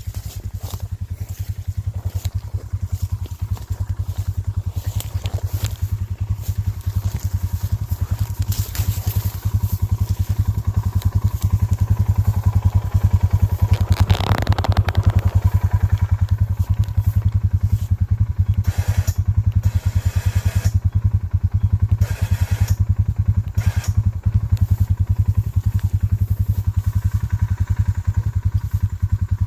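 Small engine running steadily with a fast, even exhaust pulse, with a brief scraping clatter about halfway through.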